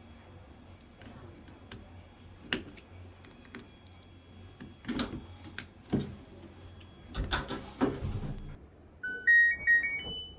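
Several clicks and knocks of handling, then, near the end, the LG washing machine's control panel plays a short electronic chime tune of stepping notes.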